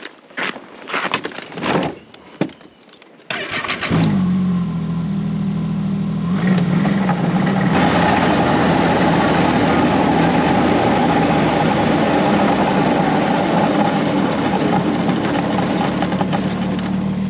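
A few crunching steps on the ice, then a snowmobile engine starts about three seconds in and settles into a steady run. It picks up twice, at about six and eight seconds in, as the sled moves off, and runs steadily while riding across the ice.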